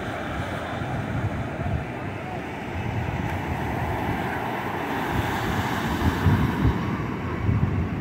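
Ocean surf breaking and washing up the beach, with gusts of wind rumbling on the microphone.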